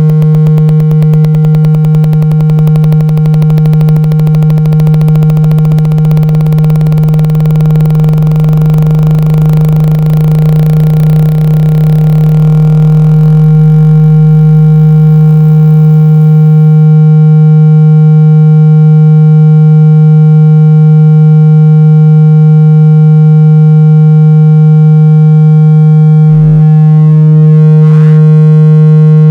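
Synthesized speaker test signal: a loud, steady low buzzing tone with many overtones, layered at first with hiss and a low rumble that stop about two-thirds of the way through. Two short glitches break the tone near the end.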